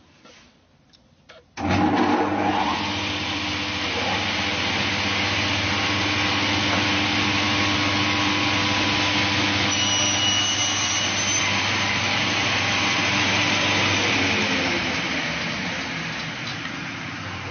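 Sliding table panel saw starting up about a second and a half in and running steadily while melamine-faced board is cut, a low hum under a loud rushing noise; it eases off near the end.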